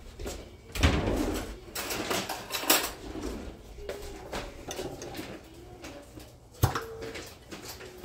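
Kitchen handling clatter: a few sharp knocks and clunks of drawers, cupboards or dishes. The loudest come about a second in and again near the end.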